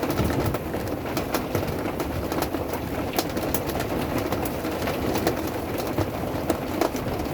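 Pea-sized hailstones and rain pelting a camper's roof and shell: a dense, irregular patter of sharp hits over a steady low drumming.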